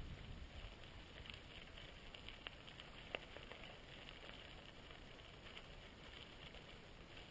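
Faint riding noise of a bicycle rolling along a dirt road: a steady low wind rumble on the microphone with a light rolling hiss, and two short sharp clicks around the middle.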